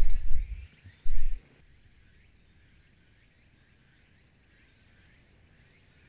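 Two low thumps of wind or handling on the microphone in the first second and a half. Under them and after them, calling insects keep up a faint, steady, high-pitched trill with softer chirps.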